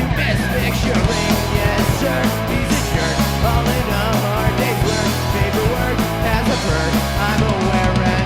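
A rock band playing a song live, loud and steady.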